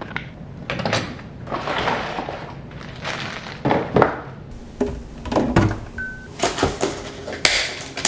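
Boxes and other items being picked up, slid and set down on a granite kitchen countertop while it is cleared: a series of irregular knocks and thunks with rustling between them.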